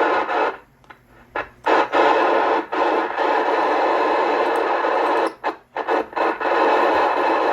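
CB radio static hissing loudly from the radio's speaker, cutting out briefly about a second in and again near the six-second mark.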